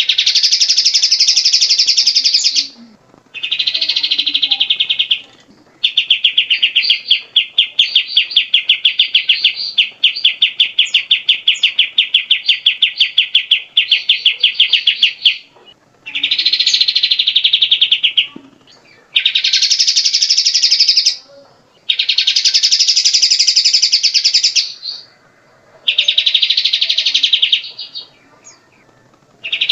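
Cucak jenggot (grey-cheeked bulbul) singing loudly in a series of rapid, buzzy trilled phrases, each a few seconds long, with brief pauses between them; one phrase near the start runs on for about ten seconds.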